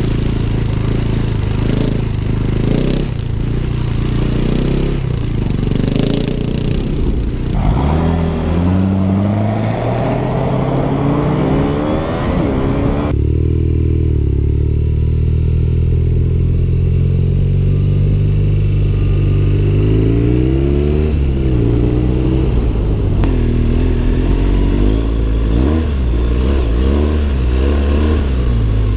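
Motorcycle engines heard from the rider's seat, changing abruptly twice as different bikes take over, with wind noise over the first part. The engines accelerate repeatedly, each pull rising in pitch and then dropping at the gear change. From about halfway the engine is a BMW R nineT boxer twin, and near the end a BMW R1200GS boxer twin.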